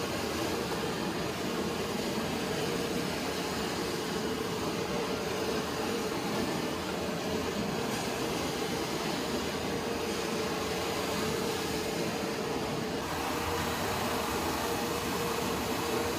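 High-pressure plastic-crate washing machine running: a steady mechanical hum with a constant tone over an even hiss.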